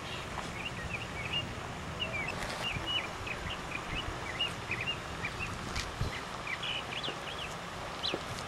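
Birds chirping: many short, quick chirps, several a second, over a steady low background noise.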